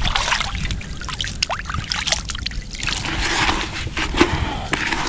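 Plastic bucket dipped into shallow river water at the bank, scooping it up with irregular splashing, sloshing and trickling, to wet a bucket of groundbait.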